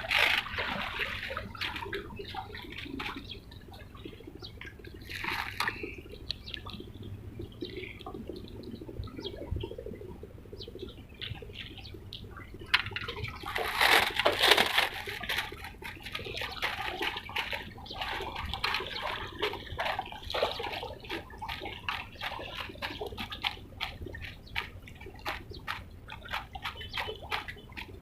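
Water splashing and lapping in short, irregular slaps, with a louder, longer splash about halfway through.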